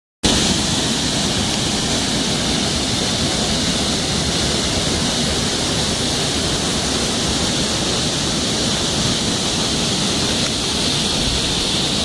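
Waterfall pouring down an ice-encrusted rock face into a pool: a steady, unbroken rush of falling water.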